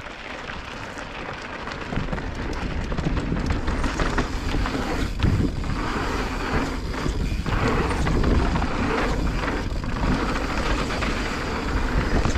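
Mountain bike riding down a dirt singletrack: a steady rush of tyre and trail noise with scattered knocks and rattles from the bike. It builds over the first couple of seconds as the bike picks up speed, then holds.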